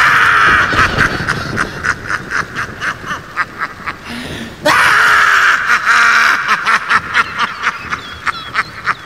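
A man's manic cackling laugh, Joker-style, in quick repeated bursts. A second loud burst comes about five seconds in.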